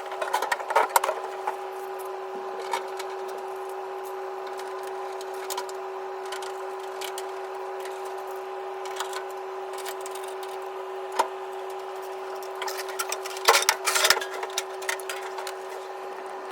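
Clicks and knocks of a microwave's casing and parts being handled and fitted back together, in a cluster near the start and another near the end, over a steady hum that cuts off suddenly at the end.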